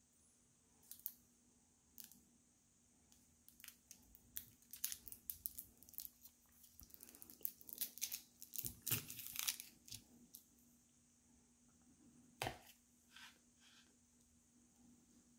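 Thin plastic straw wrapper crinkling and tearing as a drinking straw is unwrapped from a drink carton, in a run of dense crackles that build over several seconds. A few seconds later comes a single sharp pop as the straw is pushed through the carton's straw hole, followed by a few faint crackles.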